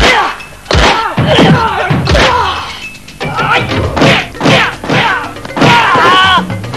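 Fight-scene punch and kick sound effects: a string of sharp whacks and thuds, about one or two a second, over background music.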